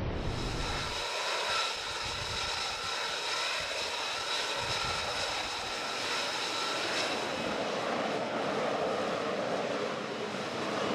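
F-35B Lightning II jet in a hover, its F135 engine running: a steady high whine, giving way to a broad roar about seven seconds in.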